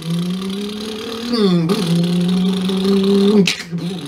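A person's mouth imitating a Volkswagen Beetle engine pulling away in first gear, made with the lips and the throat: a steady buzzing drone that climbs slowly in pitch and dips sharply about a second and a half in and again near the end, like gear changes.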